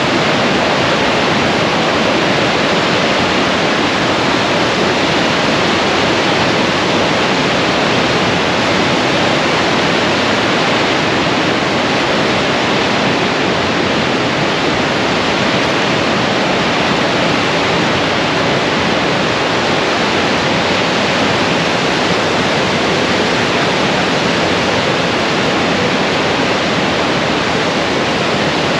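Whitewater of the Niagara River rapids above the American Falls rushing past: a loud, steady wash of water noise with no breaks.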